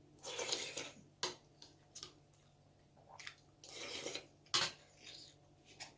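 Tableware clinking and scraping against a bowl during a meal: two longer scraping noises and several sharp clicks, the loudest click about two-thirds of the way through.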